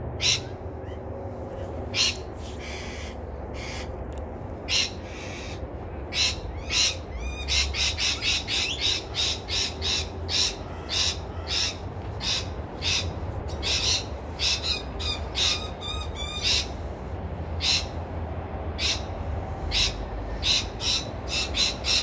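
Parrots screeching: a long run of short, harsh calls, one after another every half second or so and thickest through the middle.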